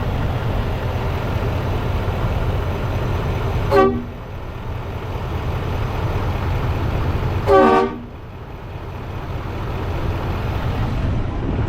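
Kleinn air-powered train horn blasted twice in short bursts, about four seconds apart, the second a little longer, over a steady low rumble. It sounds on being powered from the freshly filled onboard air tank, and it works.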